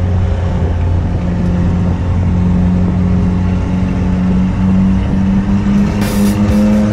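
Toyota pickup's 22R four-cylinder engine heard from inside the cab, running hard under load during an ice race. Its pitch climbs gradually through the second half as the truck accelerates.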